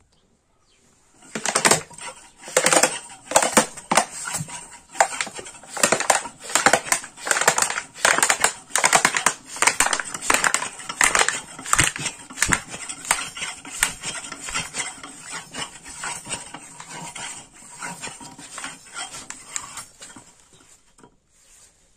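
Thin plastic water bottle crackling and popping as it is sucked in and crumpled flat by the vacuum from a homemade pump-and-jar vacuum rig. Irregular crackles start about a second in, come thick and loud at first, and thin out and soften toward the end as the bottle gives way.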